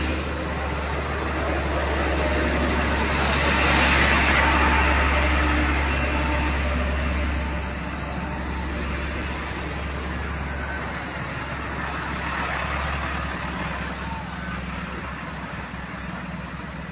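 Heavy trucks' engines running with a steady low drone, under a broad rushing traffic noise that swells about four seconds in and eases after about eight seconds.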